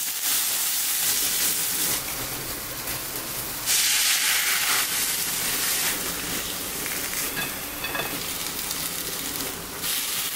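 Cherry tomatoes, egg whites and ham sizzling in a ceramic nonstick frying pan on a gas burner. The hiss is louder for the first couple of seconds and again briefly about four seconds in.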